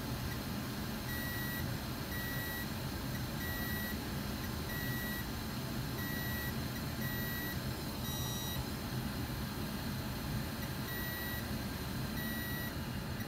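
Short, high electronic beeps repeat about once a second over a steady hum and hiss of bench equipment. The beeps stop for a few seconds a little past the middle, then start again.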